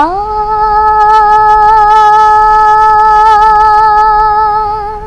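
A young girl's voice singing one long held note of a devotional song, unaccompanied: it slides up into the note at the start, holds it with a light vibrato and fades out near the end.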